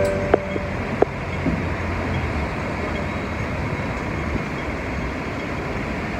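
Steady outdoor city background noise, an even wash like distant traffic, with the last plucked notes of background music dying away in the first second.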